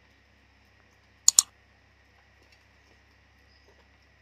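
A mouse-click sound effect for an animated like/subscribe button overlay: one sharp, loud double click about a second in, over a faint low hum.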